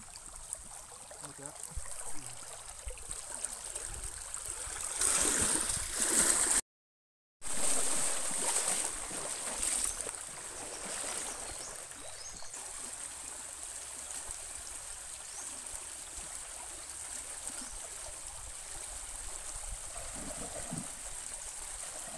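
Water sloshing and splashing as someone wades and gropes by hand for fish in shallow water, over a steady background of moving water. The splashing is loudest from about five to twelve seconds in, with a brief break in the sound about seven seconds in.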